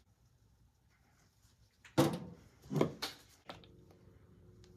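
A few short knocks of handling around a plastic mixing bowl, then a stick blender starting up about three and a half seconds in with a faint steady motor hum, mixing fragrance oil into soap batter.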